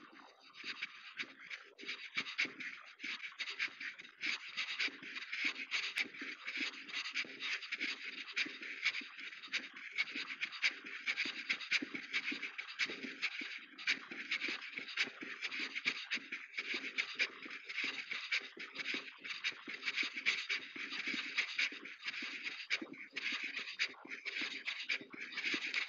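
Footsteps crunching on loose ground in a continuous, irregular run of gritty strokes.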